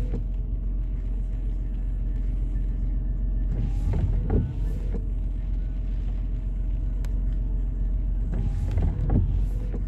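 Idling car engine with a steady low rumble, and intermittent windscreen wipers sweeping across the wet glass: one sweep about four seconds in and another near the end.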